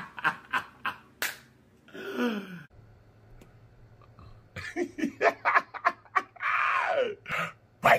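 A man laughing in quick bursts, with a short near-quiet pause in the middle before a longer run of laughter.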